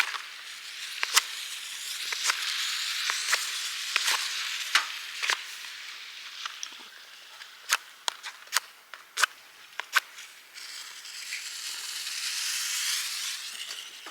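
Wood fire crackling, with irregular sharp pops over a hiss that swells and fades.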